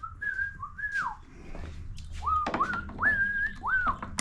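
A man whistling a tune to himself: short held notes that slide up and drop off, a pause, then a second phrase. Light clicks of handling tools and parts between the notes.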